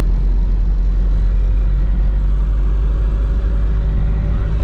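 Turbocharged Nissan SR20DET four-cylinder in a BMW E30 running steadily at light cruise, heard from inside the cabin as an even, low drone of engine and road noise.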